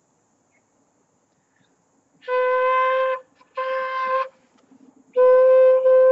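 Quena (South American notched end-blown flute) blown with no fingers on the holes, giving one steady, breathy note three times: two short blows starting about two seconds in, then a longer held one near the end.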